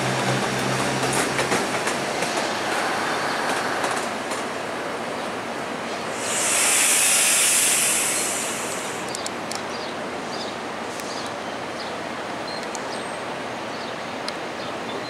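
A GO Transit bilevel commuter train rolls slowly over the tracks with a steady rumble and scattered clicking of wheels over rail joints and switches. A loud hiss rises about six seconds in and lasts roughly two seconds.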